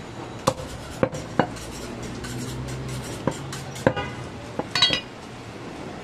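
Heavy butcher's knife chopping goat meat on a wooden stump chopping block, about five sharp chops at uneven spacing. A metallic clatter with a short ring follows near the end.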